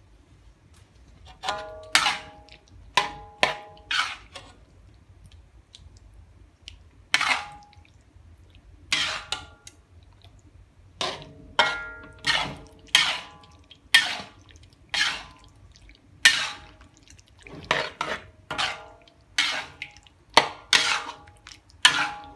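A person coughing over and over, about twenty short, sharp coughs in loose bouts, some with a voiced edge.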